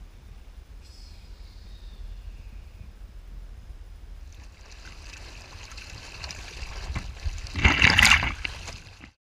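Low wind rumble on the microphone, then from about four seconds in the hiss of water rushing along a small sailing dinghy's hull, building to a loud splash of spray near the end before the sound cuts off suddenly.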